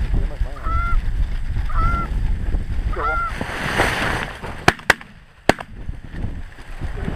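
Goose honks, three calls in the first three seconds, then a brief rustle and shotgun blasts fired at the geese: two in quick succession and a third about half a second later.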